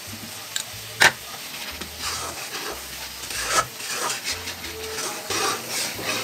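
Steel spatula stirring and scraping thick spiced masala paste with ghee around a wok, over a light sizzle of frying. There is one sharp clack about a second in.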